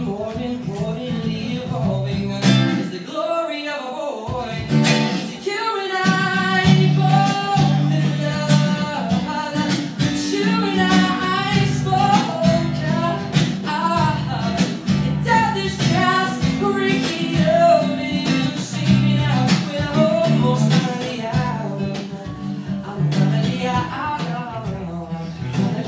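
A male singer performing a pop song live, accompanying himself on a strummed acoustic guitar.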